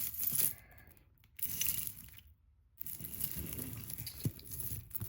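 Costume jewelry being handled and sorted: rustling and crinkling, with a few light clicks.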